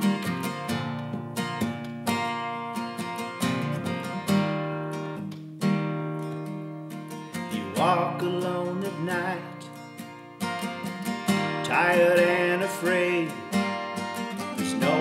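Acoustic guitar strummed in steady chords. About eight seconds in, a singing voice comes in over it with two long phrases.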